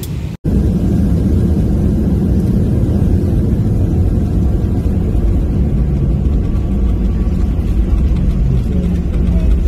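Steady low rumble of a moving vehicle. It cuts in abruptly about half a second in, after a brief gap.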